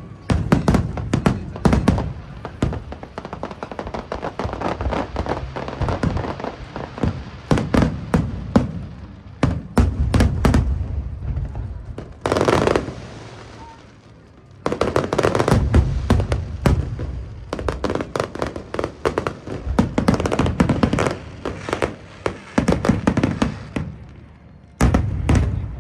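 Aerial fireworks going off in rapid volleys of sharp bangs and crackles. The barrage eases briefly about halfway through and again shortly before the end, then picks up again.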